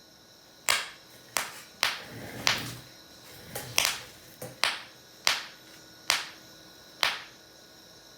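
Sharp little pops, about a dozen at irregular intervals of roughly a second, as gas bubbles from an electrolysis bucket reach a torch flame and ignite.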